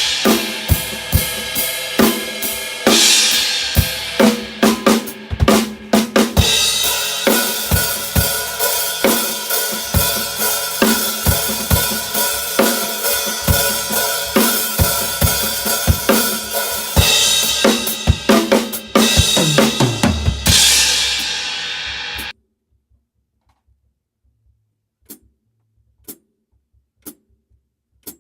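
Acoustic drum kit played in a busy groove: kick drum, snare, hi-hat and crash cymbals, with a crash ringing out for a few seconds near the two-thirds mark. The playing cuts off abruptly, followed by quiet with a few light clicks about a second apart.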